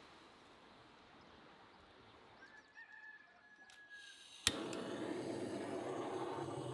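Handheld butane torch lit with a sharp igniter click a little over halfway in, then its flame running with a steady hiss. Before it, a thin high squeak lasting about a second.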